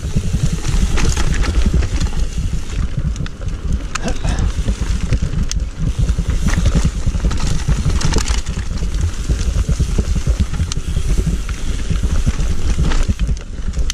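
Trek Remedy mountain bike riding fast down a dirt and stone trail, heard from a camera on the rider: a constant low rumble of wind buffeting and frame vibration on the microphone, with irregular rattles and knocks as the tyres run over roots and stones.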